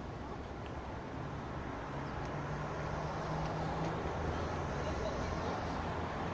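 Road traffic on a wide multi-lane city avenue: a steady wash of car engines and tyres, with a low engine drone coming in about two seconds in.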